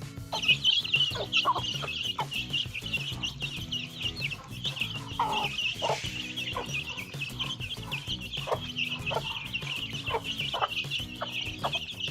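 A brood of desi chicks peeping continuously in a dense high chorus, with a hen's lower clucks now and then.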